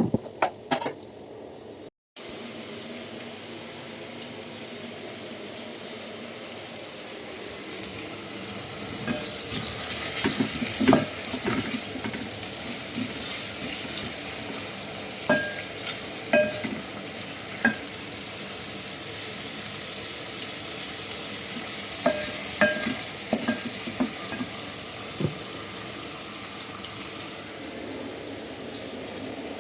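Food sizzling in a hot pan while it is stirred, with a utensil clinking and scraping against the metal pot now and then, most often in the middle and again later on.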